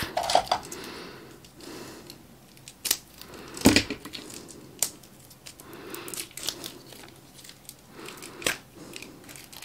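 Thin clear plastic wrapper crinkling and tearing as it is peeled off a new acrylic marker, with scattered sharp crackles, the loudest a little under four seconds in.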